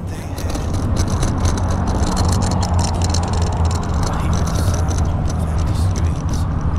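Steady low rumble of wind over the microphone of a camera carried on a moving bicycle, with tyre noise from the paved path and scattered faint crackles.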